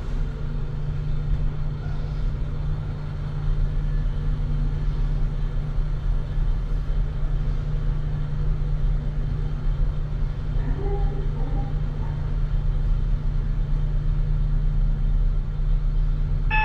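Passenger elevator car travelling between floors: a steady low hum and rumble from the moving car.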